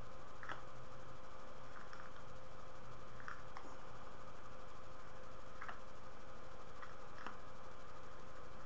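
Soft lip smacks and small pops from a man puffing on a tobacco pipe, coming irregularly every second or so, over the steady hiss and hum of a webcam microphone.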